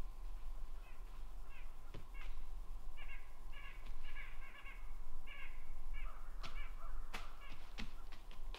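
A bird giving a run of short, harsh, caw-like calls, several a second in bursts, with a few sharp clicks or snaps in between.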